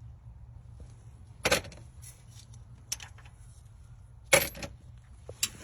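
Metal parts and tools clinking during engine teardown: two sharp clanks, about a second and a half in and again about four seconds in, with lighter clicks between, over a low steady hum.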